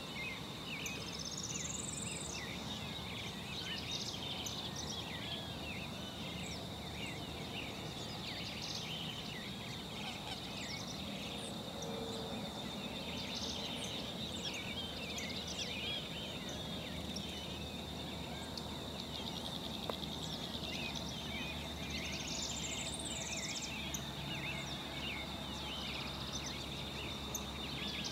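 Birds chirping and calling, many short chirps over a steady high-pitched whine, with two louder trilled calls that rise and then fall, one near the start and one about three-quarters through.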